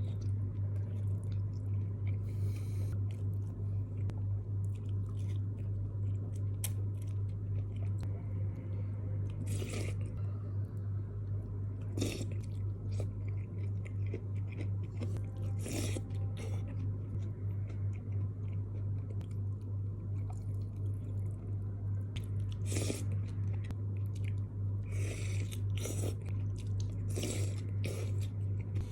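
Close-miked chewing and eating of mie kocok, a Bandung beef noodle soup, with wet mouth sounds and a few sharper clicks scattered through. A steady low hum runs underneath.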